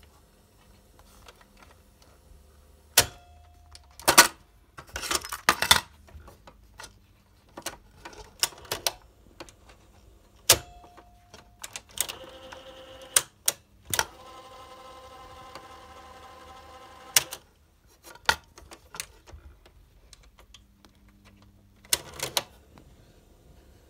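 Sharp GF-7500Z cassette deck's piano-key transport buttons and eject door clacking and clunking as they are pressed, latched and released, in scattered single clicks and short clusters. Near the middle, the deck mechanism whirs steadily for about three seconds and is cut off by a click.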